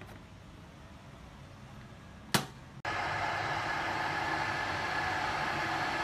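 A sharp click a little over two seconds in, then a steady rushing hiss that starts abruptly: a Cornell 1.8 L stainless steel electric kettle heating water.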